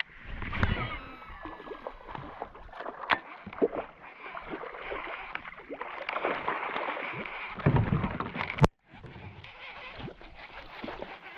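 River water sloshing and splashing, with scattered sharp knocks, while a hooked fish is fought near the bank.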